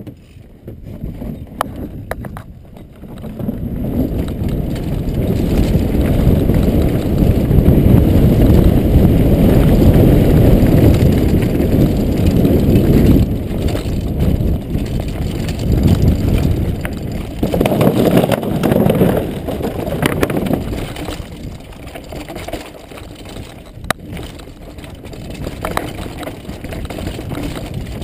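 Downhill mountain bike run heard from a helmet-mounted camera: wind buffeting the microphone and tyres rumbling over dirt and rock, with sharp knocks and rattles from the bike over bumps. It builds a few seconds in as the bike picks up speed and is loudest in the first half.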